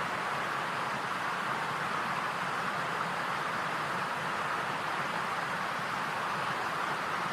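Steady, even hiss with no change in level and no distinct events.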